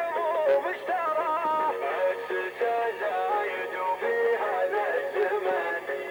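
Music: a Middle Eastern song with a male voice singing wavering, ornamented melodic lines, the vocal heavily processed so that it sounds synthetic, over steady accompaniment.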